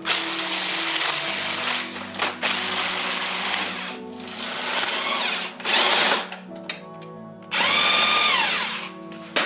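Cordless DeWalt drill backing out the snowmobile skid's mounting bolts in several bursts. In the last burst, near the end, the motor's whine rises, holds and winds back down. Background music runs underneath.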